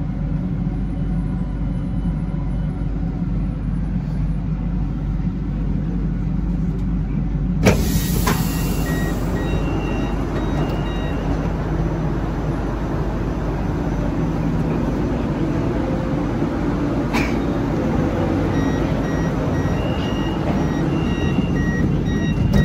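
Siemens Inspiro metro train standing with a steady hum, then about eight seconds in a sudden pneumatic air release ('phew') with a hiss that lingers: the brakes letting go of their air after an emergency stop. Short repeated beeps sound twice afterwards.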